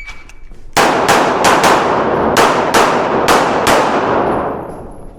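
Handgun shots fired in quick strings, about eight of them in pairs and small groups, each ringing out with a long echo. At the very start is the tail of the shot timer's start beep.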